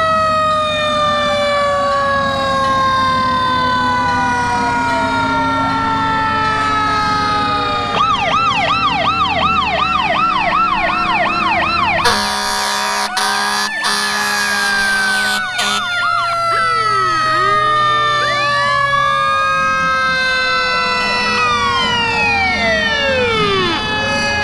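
Several fire-engine sirens sounding together, their pitches slowly gliding down and winding up again. A fast warbling siren joins about eight seconds in, and a loud horn blast, broken once, sounds about halfway through, over a steady low engine hum.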